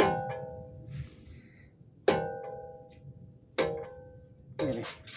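Metallic clanks from the wheel and brake of a 2008 Honda CR-V, five irregular strikes, each ringing briefly like a bell before dying away. This is the strange brake noise being shown, which the mechanic traces to a part that has worked loose and marked the rim.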